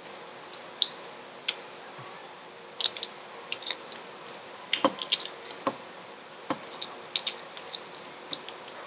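Irregular light clicks and ticks, about twenty in a few seconds, from handling a balut egg and its shell while eating.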